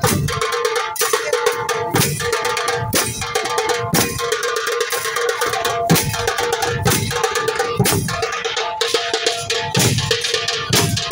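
Dhol drums beaten in a steady rhythm, with a heavy low stroke about once a second and lighter strokes between. A ringing metallic clang carries on over the drumming.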